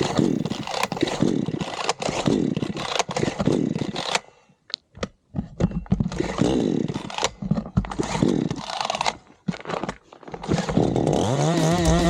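Small dirt-bike engine revving up and down repeatedly with a chainsaw-like buzz, in two bursts with short pauses between. A heavy-metal guitar riff comes in near the end.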